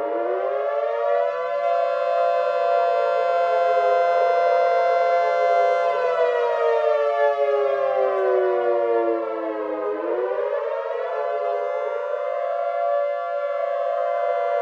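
A wailing siren: its pitch climbs for about a second and a half, sinks slowly for several seconds, then climbs again about ten seconds in and begins another slow fall.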